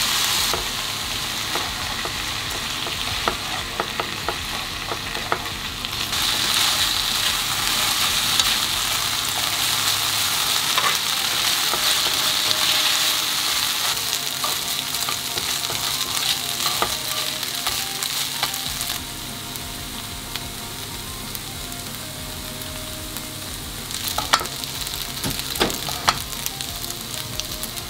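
Yakisoba noodles, pork and vegetables sizzling in a hot frying pan with Worcester-based sauce as they are stirred and tossed with a utensil. The sizzle swells a few seconds in and eases later, with a few sharp knocks near the end.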